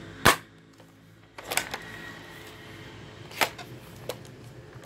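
An M47 spring airsoft gun giving sharp clacks as it is fired and worked by its pump: one loud clack just after the start, a quick cluster about a second and a half in, and single clacks about three and a half and four seconds in. The report is very muffled.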